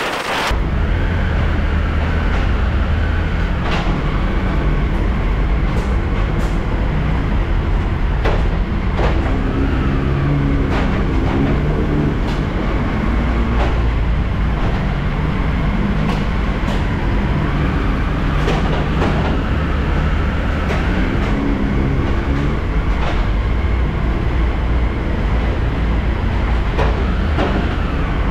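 Eurotunnel shuttle train running steadily at speed: a continuous heavy low rumble with a wavering hum and scattered sharp clicks from the wheels and track.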